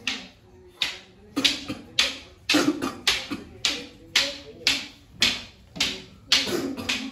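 Long wooden staffs clacking together in Kalaripayattu staff sparring: a quick run of sharp strikes, about two a second, each ringing briefly.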